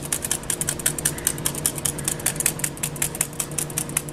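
Rapid, even tapping on a fine-mesh metal sieve, about eight taps a second, as cocoa powder is sifted through it.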